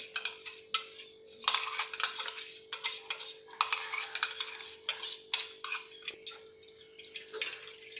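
A spoon scraping and clinking in a strainer as blended carrot pulp is pressed through it to squeeze out the juice, in irregular strokes.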